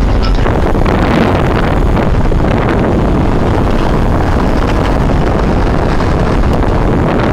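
Wind rushing over the microphone from a moving car's open window, mixed with road noise; loud and steady throughout.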